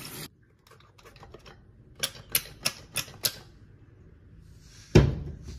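Tap water running into a laundry tub cuts off just after the start. About two seconds in, five quick sharp clicks, roughly three a second, from a small pump bottle spraying baby shampoo onto the wet latex palms of goalkeeper gloves. Near the end a single loud thump.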